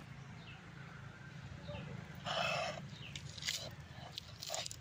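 A wooden rolling pin crushing green chillies on a wooden board: a short crunch about two seconds in and a few knocks near the end, over a faint steady hum.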